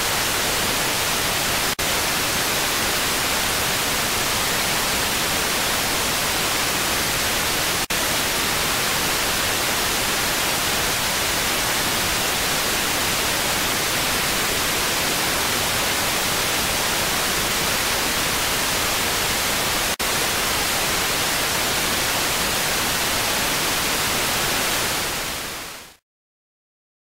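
Steady static hiss with nothing else in it, broken by three momentary dropouts about two, eight and twenty seconds in. It fades out near the end into silence.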